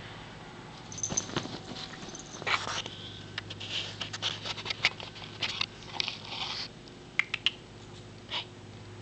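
A kitten's claws scratching and catching on the fabric of a cat bed as it climbs onto the cushion: a string of short rustling scratches and sharp clicks, with a low steady hum underneath.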